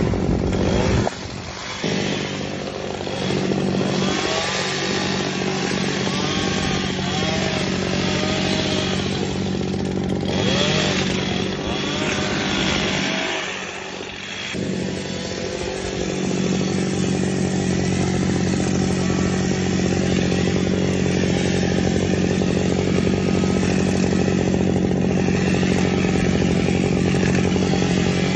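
Echo two-stroke gas hedge trimmer running at high throttle as it cuts through shrubs, easing off briefly about a second in and again around the middle before throttling back up.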